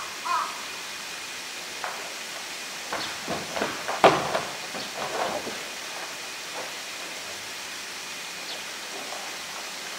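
Polar bear knocking and pushing a blue plastic drum about on concrete: a cluster of knocks and scrapes in the middle, with one sharp loud knock about four seconds in, over a steady hiss of background noise.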